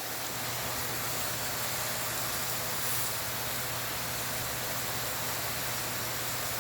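Steady hiss of a thick steak sizzling on a hot flat-top griddle, mixed with the steady whoosh and low hum of an electric fan, which partly covers the sizzle.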